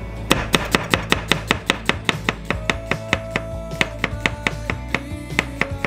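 Kitchen knife slicing an onion on a wooden cutting board, each stroke ending in a sharp knock of the blade on the board, at a steady rhythm of about four cuts a second.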